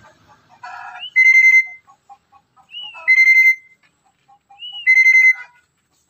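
Black-capped lory giving a loud, shrill whistled call three times, about two seconds apart; each call is a short upward hook that settles into a held steady note.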